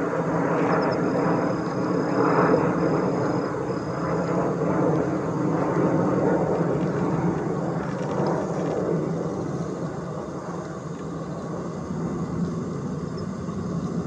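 Steady low drone of distant engine noise that swells and eases a little, with a faint thin high tone in short pieces during the first few seconds.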